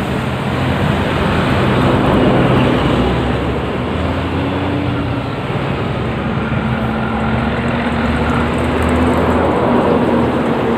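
Busy highway traffic: cars and motorbikes passing back and forth, a steady rush of tyres and engines that swells about two seconds in and again near the end as vehicles go by.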